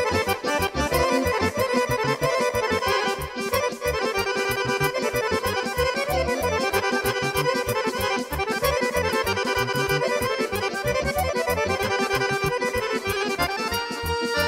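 Folk band playing a fast Vlach kolo dance tune led by trumpets, over a steady pulsing bass beat.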